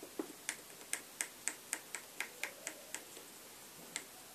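Pencil tip ticking in quick light strokes, about three to four a second, against a keyboard's key-contact circuit board, then a pause and one last tick near the end. Pencil graphite is being rubbed onto faded contact lines to restore failing key contacts.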